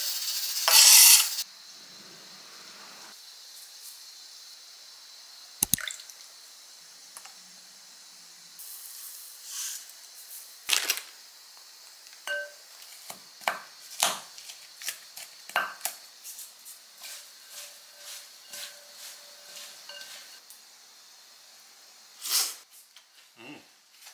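Kitchen items being handled: a short hiss in the first second or so, then a string of light clicks and clinks of dishes and utensils, with a louder knock near the end.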